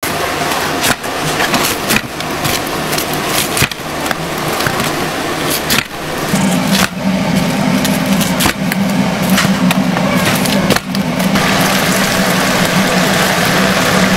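A lever-arm chopping knife hinged to a wooden board chops through crispy fried chicken, with a sharp chop about once a second and a steady low hum joining about halfway. Near the end the chopping stops and a steady, dense sizzle of chicken deep-frying in hot oil takes over.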